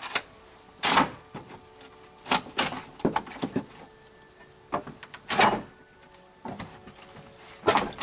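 Old wooden diagonal brace being torn off a wooden gate by hand: a series of sharp cracks and creaks as the board is wrenched loose, with short pauses between pulls.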